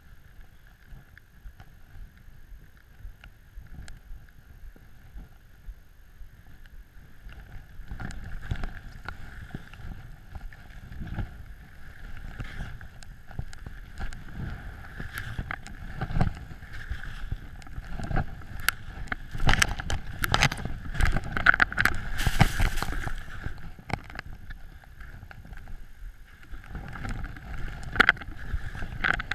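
Skis running through deep powder snow: swishing and scraping turns, with wind on the microphone. The turns get louder and quicker about eight seconds in, with the loudest rush of snow around twenty seconds in.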